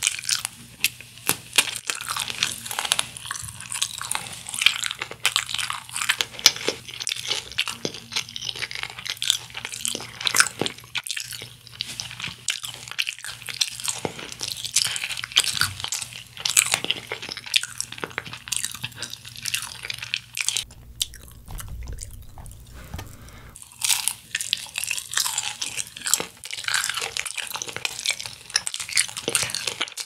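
Crispy honey-glazed fried chicken (Kyochon Honey Combo) being bitten and chewed close to the microphone: a dense run of crackling crunches. It eases off for a couple of seconds about two-thirds of the way through, then picks up again.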